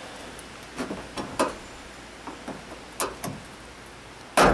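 A small metal pry bar working a plastic push-in fastener out of a plastic trim panel: a series of clicks and knocks as the tool levers and slips under the fastener head. The series ends in one loud sharp snap near the end as the fastener gives way.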